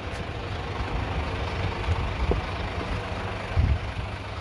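Steady low rumble of outdoor street background noise, with a couple of soft thumps about two and three and a half seconds in.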